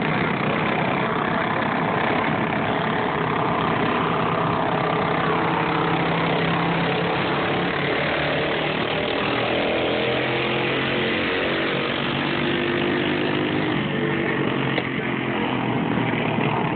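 Several small go-kart engines running at once, with a steady buzz and pitches that rise and fall as they rev.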